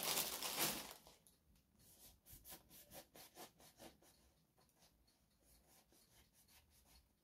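Knife sawing back and forth through soft bread buns as they are halved, in faint quick strokes, with a louder rustle in the first second.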